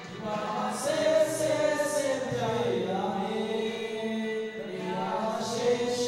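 Several men singing a song together into microphones; the singing comes in just after the start.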